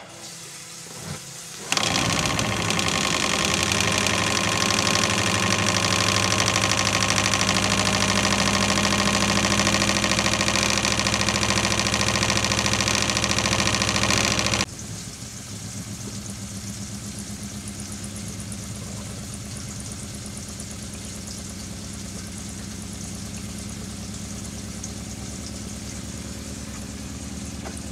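Diaphragm water pump starting about two seconds in and running with a loud, rapid mechanical rattle from loose pump housing screws. About halfway through, the same pump with its housing screws tightened runs much quieter and steadier, with a fine regular ticking.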